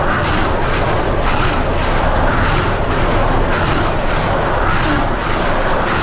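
John Deere 6155R tractor's six-cylinder diesel engine running with the John Deere C440R baler-wrapper working behind it, heard from inside the cab: a steady drone with a faint regular pulse about once a second.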